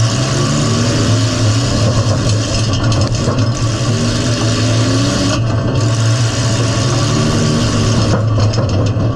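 Midsize demolition derby car's engine running hard with a steady, loud drone, heard from inside the stripped-out cabin as the car drives.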